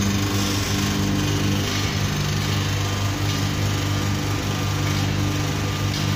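Small electric screw oil press running steadily under load, its motor and gear drive giving a constant low hum over a hiss as the screw presses oil seeds and pushes out the pressed cake.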